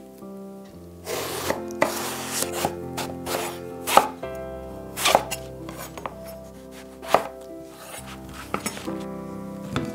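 Chef's knife cutting an aubergine on a wooden chopping board: a drawn-out cutting noise about a second in, then sharp knocks of the blade on the board about once a second. Soft background music plays under it.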